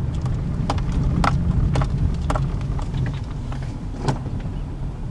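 Car cabin while driving slowly: a steady low engine and road rumble, with irregular sharp clicks and rattles about once or twice a second.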